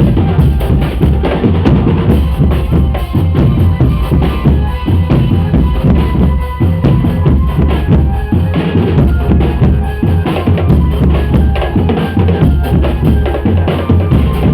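Drum band playing loud, driving drumming, with deep bass-drum beats under rapid snare hits in a steady rhythm and a thin melody line faintly above it for a few seconds midway.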